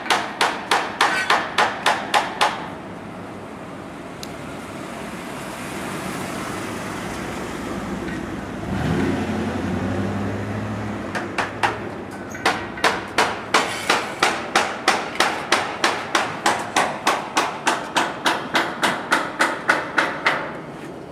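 Hand hammer striking in quick, even strokes, about four a second, in two long runs with a pause of several seconds between them. During the pause a low engine hum swells and fades.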